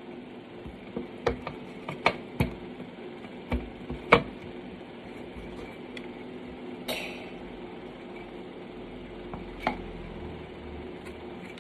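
A few light, sharp clicks and taps, about six, scattered over a steady low hum, with a short hiss a little past the middle.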